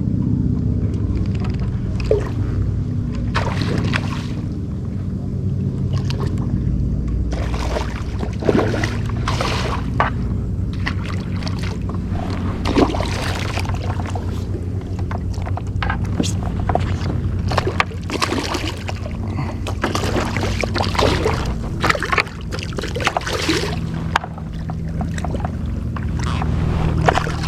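Water splashing and sloshing around a kayak, with many short splashes and knocks scattered throughout, over a steady low rumble.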